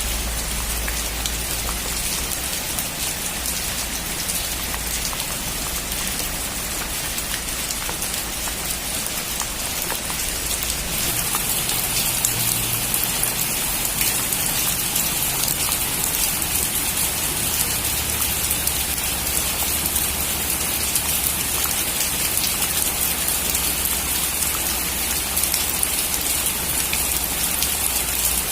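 Heavy rain drumming steadily on a metal roof, growing a little heavier about a third of the way in. A low rumble sits under it at the start and fades away.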